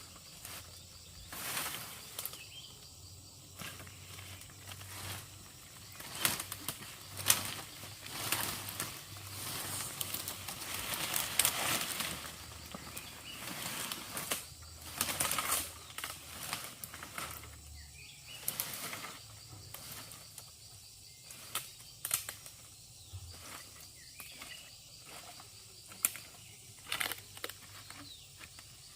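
Irregular rustling and brushing with scattered sharp clicks and knocks, busiest in the first half.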